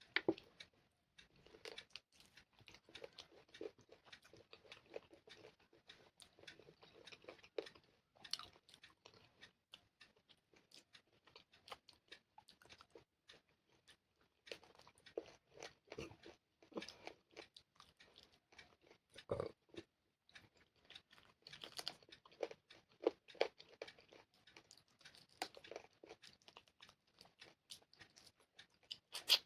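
Close-up eating sounds of chicken curry with rice: wet chewing, lip smacks and crunchy bites in runs of many quick clicks, broken by short pauses.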